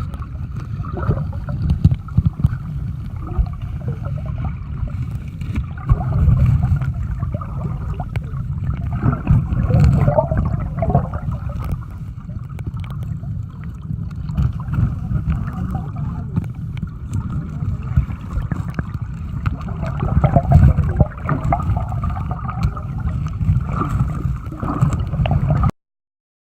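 River water gurgling and rushing, heavy in the low end and muffled; it cuts off suddenly near the end.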